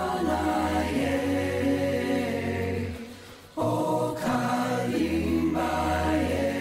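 Background music of held, chant-like voices over a low steady drone, breaking off briefly about three seconds in and coming back in.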